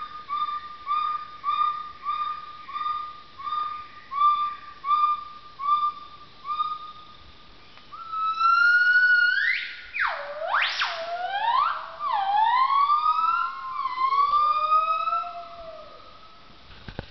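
Wild gibbons calling: about eleven short, evenly spaced whistled notes, under two a second. About 8 s in, these give way to loud notes that rise and then sweep steeply up and down. Near the end a second, lower call overlaps before the calling fades.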